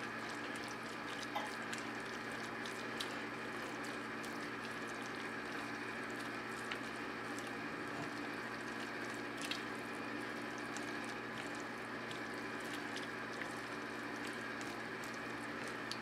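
A thick, creamy crab and spinach dip being stirred in a ceramic bowl with a spatula: soft wet squishing with the odd faint tap of the spatula against the bowl, over a steady low hum.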